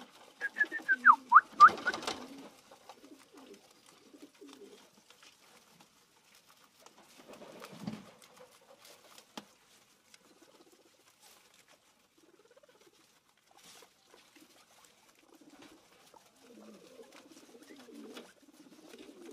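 Guinea pigs squeaking: a quick run of short, falling high squeaks about a second in, with a loud rustle. Then faint clicks and soft low chuttering as they nibble grass, and a low pulsing rumble near the end.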